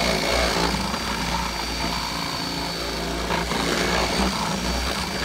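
DeWalt cordless drill running steadily under load, its motor whining as the bit enlarges a cable hole in a boat's console.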